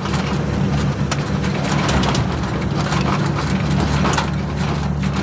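Cargo truck under way, heard from on top of its load: a steady low engine hum with road noise over it.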